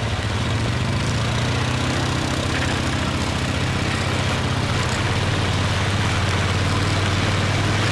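ATV (quad) engine running steadily, its note dropping a little about five seconds in.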